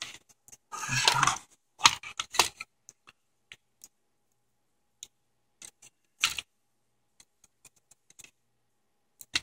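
Plastic casing of an HP Compaq nc6400 laptop being handled as it is turned over and worked on: a short scraping rustle about a second in, then scattered clicks and knocks of plastic, with a louder knock about six seconds in.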